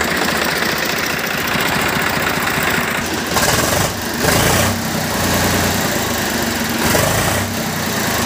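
Swaraj 735 FE tractor's three-cylinder diesel engine idling steadily, freshly reassembled after a repair for water getting into the engine, with a few brief louder surges about three to five seconds in and again near the end.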